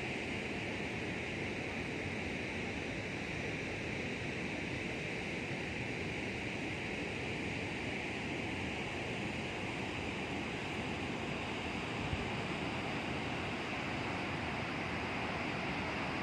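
Niagara Falls, the water rushing and falling in a steady, unbroken noise.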